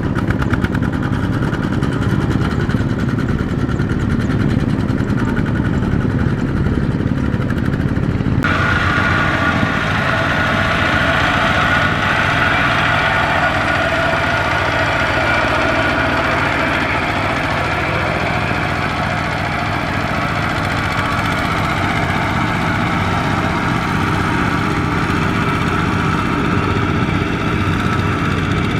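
Single-cylinder diesel engines of two-wheel walking tractors (power tillers) running steadily under load as they haul trailers through deep mud. About eight seconds in, the sound changes abruptly to another tiller, with a higher whine over the engine.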